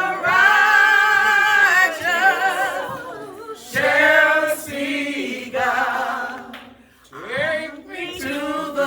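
Voices singing a gospel song unaccompanied, in long held notes with a wavering vibrato, the phrases dropping away briefly about seven seconds in.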